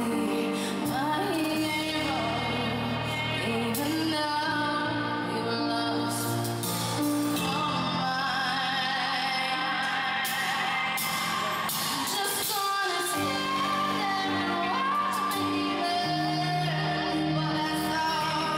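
A woman singing a slow song live into a microphone over grand piano accompaniment, with the echo of a large arena.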